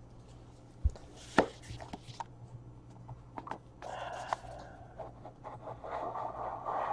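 Hands handling a small cardboard trading-card box: two sharp knocks about a second in, light taps, then cardboard rubbing and scraping from about four seconds on as the box is slid open.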